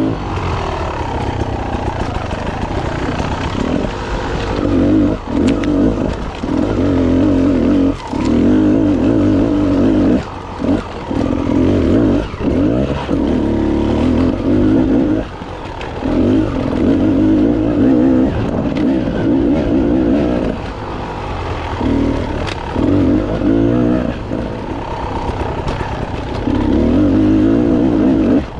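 Dirt bike engine under way on a rough trail, pulling in bursts with the throttle cut off briefly many times, about once every second or two in places. Sharp knocks and clatter from the bike going over rocks and roots come through between the pulls.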